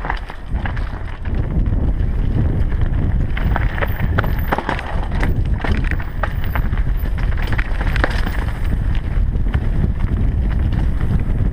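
Mountain bike descending a rough dirt singletrack at speed: a steady low wind rumble on the microphone, with scattered clicks and rattles from the bike over the bumpy ground.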